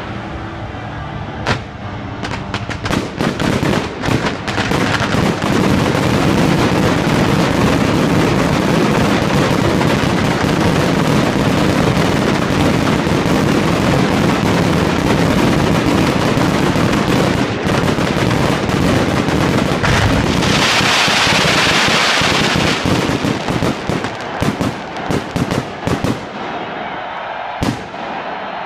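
Aerial fireworks launching and bursting at close range: a few separate bangs, then a dense, continuous barrage of bangs and crackle with a bright hissing stretch about two-thirds of the way through, thinning to scattered bangs near the end.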